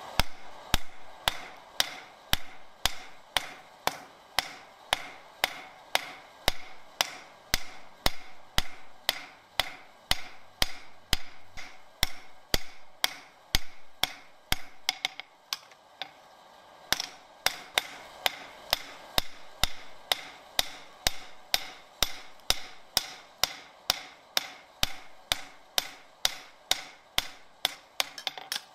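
Blacksmith's hand hammer striking hot steel on an anvil in a steady rhythm of about two to three blows a second, forging the flat blade of an ice spud. The blows thin out briefly about halfway through, then resume.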